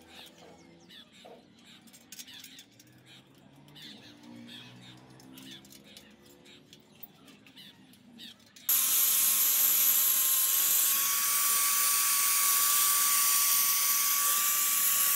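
Light metallic clicks and taps of small bicycle wheel parts being handled. About two-thirds of the way through, an electric angle grinder cuts in loud and runs steadily, a high whine over the hiss of the disc grinding on a steel bicycle handlebar.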